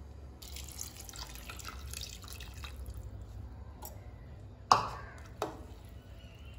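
Measured cooking water being poured into a pressure cooker of soaked basmati rice and chicken masala, splashing for about two and a half seconds. About a second later comes a sharp clank, then a lighter knock, as a metal spoon goes into the pot.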